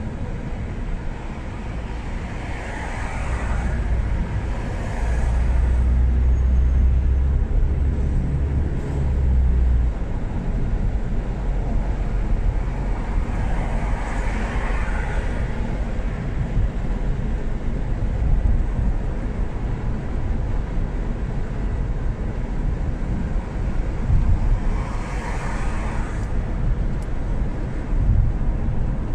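Car driving through city traffic: steady engine and road rumble, heavier for a few seconds about five seconds in, with the hiss of other traffic swelling and fading three times.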